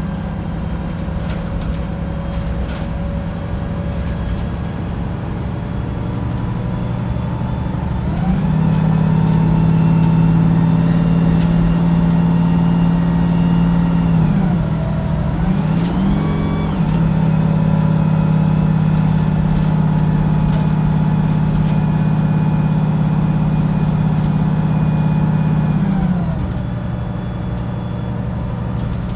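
Diesel engine of a Wright Pulsar 2 single-deck bus heard from inside the saloon, running with a steady drone that rises and grows louder about a quarter of the way in as it pulls harder. It dips and picks up again about halfway through, like a gear change, and eases back a few seconds before the end, with scattered knocks and rattles from the bus body.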